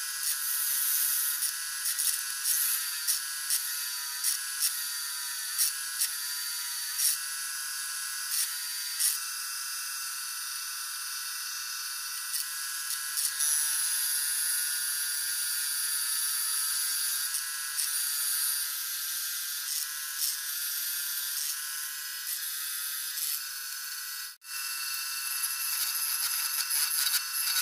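Wood lathe running with a walnut vase blank spinning against the roller wheels of a steady rest: a steady machine whine with scattered sharp clicks. A drill bit bores into the end of the blank, and near the end a turning tool cuts inside the vase.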